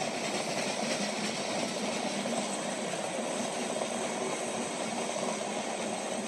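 Freight train cars rolling past close by at a steady speed, giving a continuous noise of wheels on the rails.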